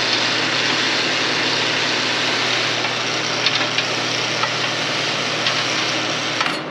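Electric chain hoist motor running steadily while lifting a heavy auger housing, with a low hum under an even mechanical whir; it stops near the end.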